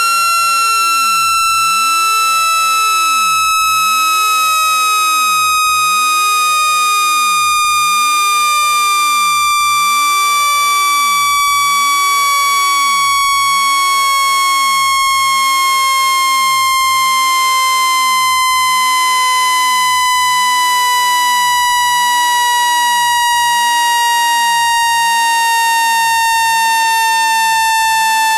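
Synthesized speaker-cleaning tone played to shake dust out of a phone speaker: a steady electronic tone with stacked overtones, gliding slowly and evenly down in pitch.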